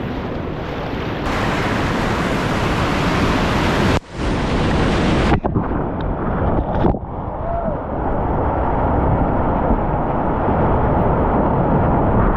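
Loud rushing and splashing of whitewater rapids around a kayak, heard close on an action camera's microphone. The sound cuts out briefly about four seconds in and turns duller from about seven seconds on.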